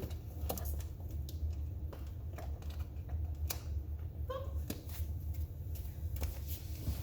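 Scattered sharp clicks and light handling noise as a newly replaced lamp switch is turned to test the repaired lamp, over a steady low hum.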